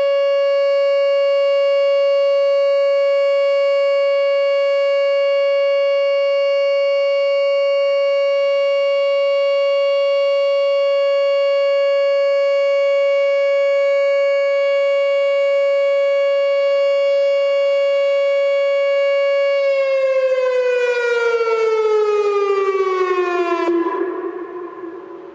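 Whelen WPS 2910 electronic outdoor warning siren sounding its full-alert steady tone, one loud unwavering pitch. About twenty seconds in, the tone slides down in pitch for a few seconds as the signal winds down, then cuts off and fades, ending the test.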